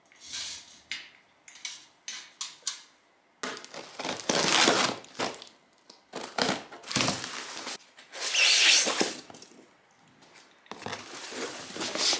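Cardboard parcel being opened: packing tape slit and ripped off and the cardboard flaps pulled open, in several rough, rasping bursts. A few light clicks and knocks come first.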